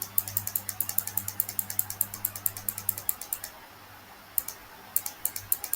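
Computer mouse scroll wheel clicking rapidly, about nine even clicks a second, in two runs with a pause of about a second between them.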